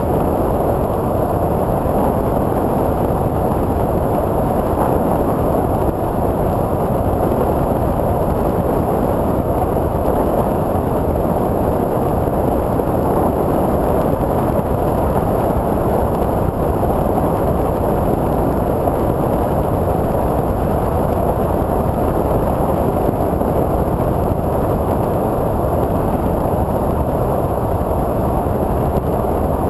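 Multiplex TwinStar II, a twin electric-motor RC plane, in flight, heard from its onboard GoPro: a steady rush of wind and propeller noise.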